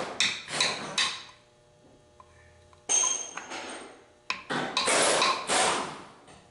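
Hammer blows on metal, each ringing briefly, in a few clusters of sharp strikes with a short pause after the first second.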